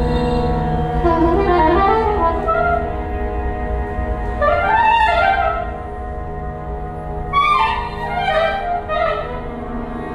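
Soprano saxophone and trumpet playing experimental, improvised music: three short phrases rise and fall over steady held tones.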